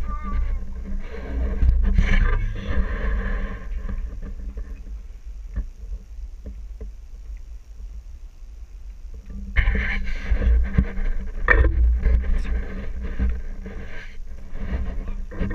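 Wind buffeting the microphone with a steady rumble, over a Jeep's engine working as it crawls over boulders. The engine rises in two louder stretches, near the start and again in the second half.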